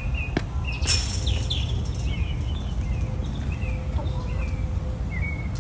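Birds chirping in short, high calls repeated every half second or so over a steady low rumble, with a brief rustle about a second in.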